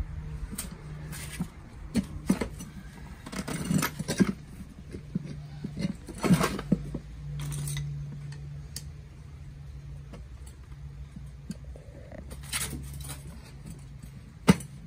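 Scattered clicks, clinks and scrapes of a screwdriver and hands working a knobby rubber tire off its small steel wheel rim, with a sharp knock near the end.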